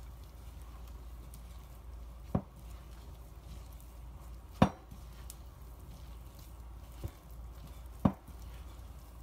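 Hands kneading risen yeast dough in a glass mixing bowl, with a few sharp knocks against the bowl; the loudest comes about halfway through.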